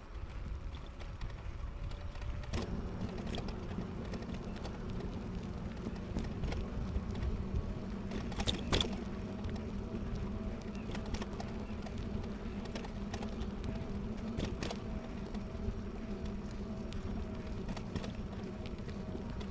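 E-bike on the move: a steady low motor hum that sets in a few seconds in, over tyre and road rumble, with scattered clicks and rattles from the bike.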